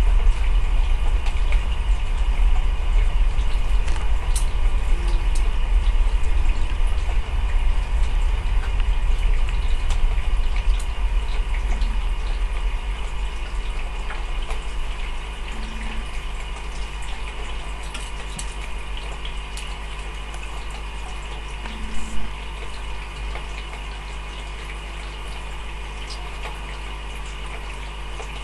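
Aquarium filter running: a steady low hum under an even water hiss, with the low rumble easing off about halfway through.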